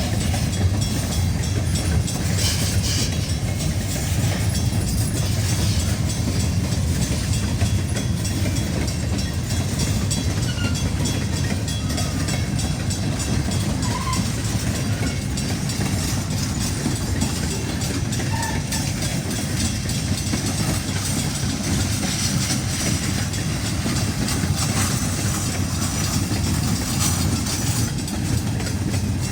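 Great Lakes Central Railroad freight train rolling past, with a steady low rumble and wheels clacking over the rails.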